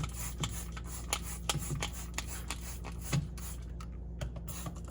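Scrubbing and rubbing inside a refrigerator while cleaning it, with irregular scraping strokes and light knocks.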